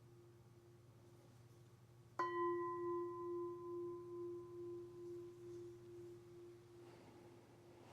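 A meditation bell struck once, ringing with a clear tone and fading slowly over about five seconds with a wavering pulse in its loudness.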